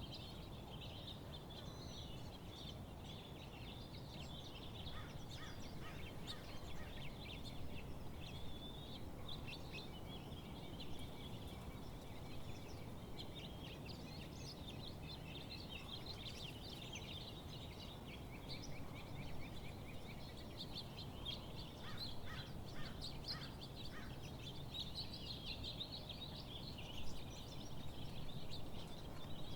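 Songbirds chirping and trilling in a dense chorus, with many short calls overlapping, over a steady low rumble of outdoor background noise.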